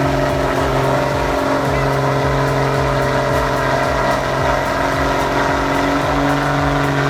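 A heavy vehicle engine running steadily under load, with an even low pulse a few times a second.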